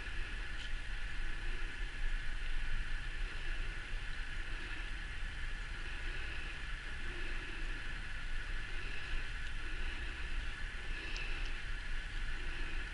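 Steady background hum and hiss of room noise, with no distinct events.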